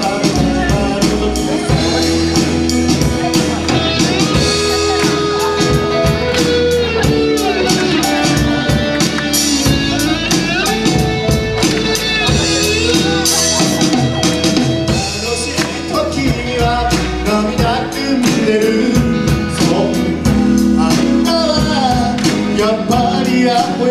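Live band playing a pop-rock song on drum kit, electric guitars, bass and keyboard, with singing.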